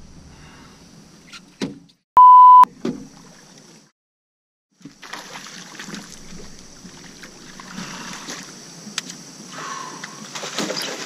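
A loud beep at a single pitch, held for about half a second about two seconds in, of the kind used to bleep out a word. After a second of dead silence, a steady rushing of water and small-boat noise with a few sharp clicks follows while a fish is fought on a bent rod and brought to the net.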